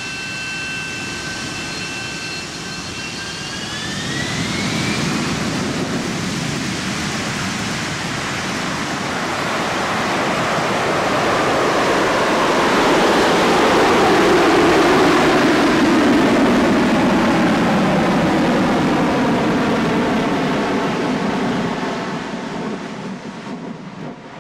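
Jet aircraft engine noise. A high whine rises in pitch a few seconds in, then a loud rushing noise builds to a peak about halfway through. It fades toward the end, its pitch sliding down as the aircraft passes.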